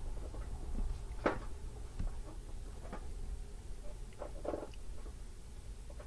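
Faint steady low hum with a few short squeaks and clicks scattered over it, the clearest about a second in and again near four and a half seconds.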